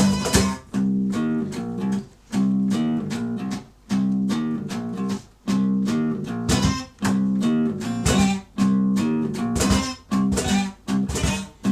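Acoustic guitar strumming an instrumental passage of a live song, with no singing. The chords come in rhythmic phrases broken by short stops.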